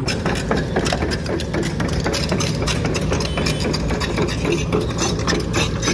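An engine running steadily, with a dense, fast rattle over a constant low rumble.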